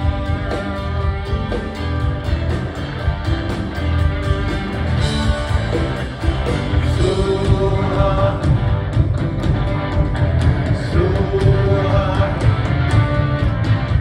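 Live rock band playing a song through a concert PA: electric guitars, bass, drums and keyboard under lead vocals. The music dips briefly about six seconds in, then comes back a little louder.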